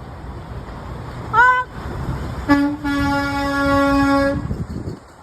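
Truck horn honking: a short toot that rises in pitch as it sounds, then a single long steady blast of about two seconds, over the rumble of passing traffic.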